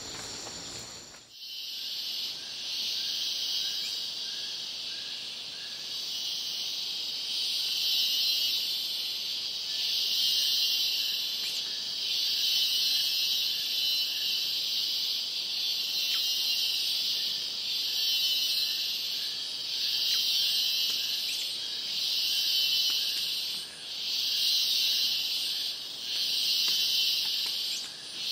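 Tropical forest insect chorus: a dense high-pitched buzz that swells and eases about every two seconds, with a faint run of short, lower repeated notes. A different, quieter sound fills the first second before the chorus cuts in.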